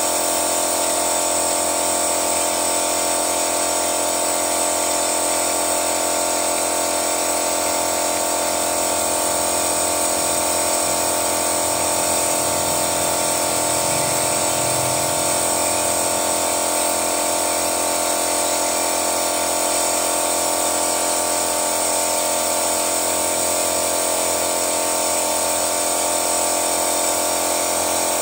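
Engine-flushing machine's pump running steadily, a constant mechanical hum with a high whine, circulating flushing fluid through the engine.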